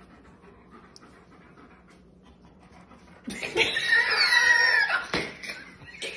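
A baby's high-pitched whining cry, about three seconds in and lasting nearly two seconds, as she screws up her face at the sour taste of a lemon.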